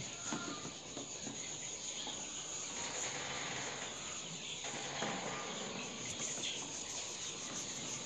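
Steady high-pitched chirring of insects, with a few faint taps and rubbing from eggs being handled and wiped by hand.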